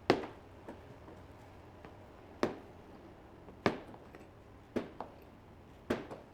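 Sharp metallic knocks and clanks from brass pipe fittings and tools being handled and set down on a workbench during assembly: six separate hits, irregularly spaced, each ringing briefly, the loudest just as it begins.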